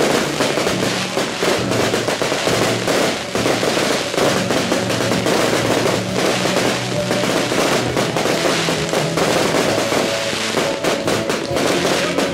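A fireworks finale of aerial shells bursting and crackling in quick, continuous succession, layered over music with drums.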